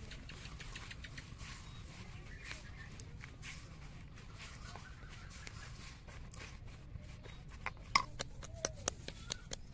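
Hands kneading flour dough in a stainless steel bowl: soft squishing and light knocks against the metal, with a quick run of sharp clicks near the end.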